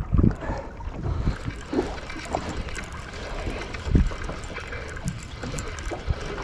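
Boat at sea: water lapping and wind noise, with a few dull knocks, the loudest about four seconds in.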